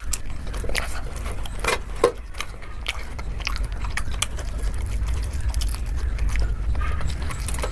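Close-miked eating sounds: a person chewing and biting food, with many small sharp clicks and smacks, over a steady low hum.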